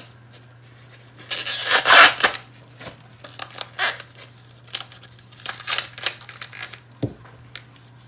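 Green husks being torn and pulled off an ear of fresh corn by hand: crisp tearing and rustling in irregular bursts, loudest about two seconds in, with shorter tears after.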